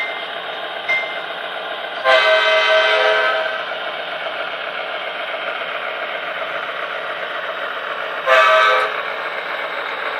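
Sound-equipped model diesel locomotive's speaker playing a steady engine sound. The horn sounds a long blast about two seconds in and a short blast near the end.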